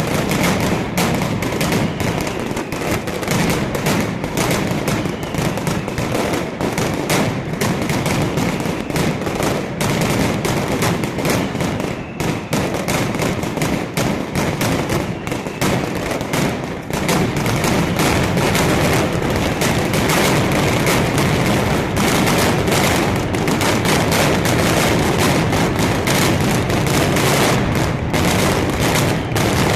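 Mascletà: a dense, rapid string of firecracker bangs, merging about halfway through into a continuous, louder wall of bangs.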